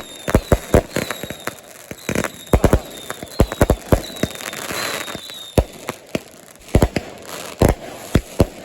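Fireworks and firecrackers going off: a rapid, irregular string of sharp bangs and pops, many in a row, with a brief hiss about five seconds in.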